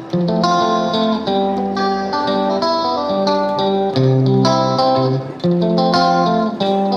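Background music: a plucked guitar playing a repeating melodic figure.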